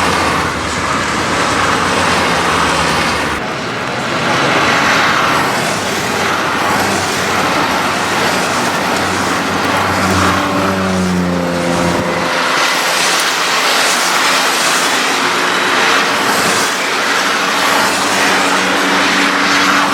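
Citroën C1 race cars running on a wet track. Engine notes rise and fall over a steady hiss of spray.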